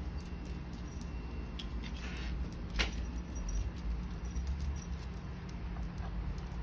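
Faint scuffling and a few light clicks as a cat and a miniature schnauzer tussle on concrete, one sharper click about three seconds in, over a low steady rumble.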